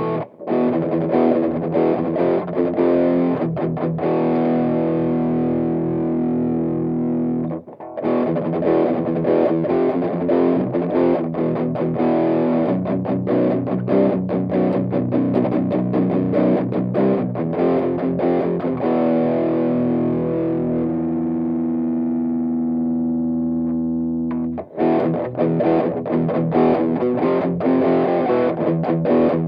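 Distorted electric guitar played through a Hynotone Cab Screamer60 power amp pedal into a miked guitar speaker cabinet. Chords are played, stopping briefly about eight seconds in; in the middle a chord is left ringing and slowly fades for about ten seconds before playing resumes.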